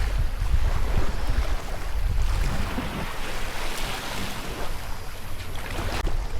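Wind buffeting the microphone with a low, steady rumble over the wash and splash of sea water, which swells briefly around the middle.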